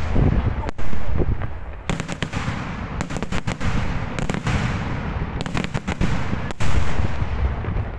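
Daytime aerial fireworks going off overhead: an uneven string of sharp bangs, some in quick clusters, over an echoing rumble. The loudest blasts come about a second in and again near the end.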